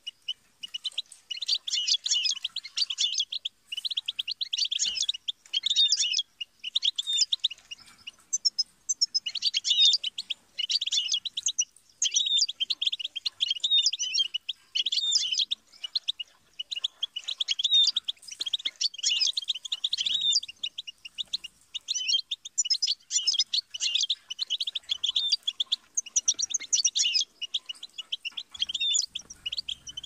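European goldfinch singing: high, rapid, liquid twittering phrases of a second or two each, separated by short pauses and repeated over and over.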